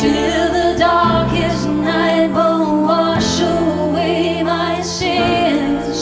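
A woman's layered, looped vocals holding wavering notes over sustained piano chords, which change about every two seconds.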